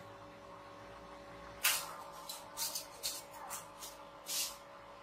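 Homemade spot welder firing at its brass electrodes: a row of short, sharp crackling snaps over about three seconds, the first the loudest and the last a little longer.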